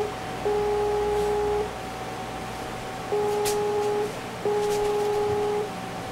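A horn-like two-note tone: a steady higher tone sounds throughout while a louder, lower tone blasts on and off three times, each blast lasting about a second.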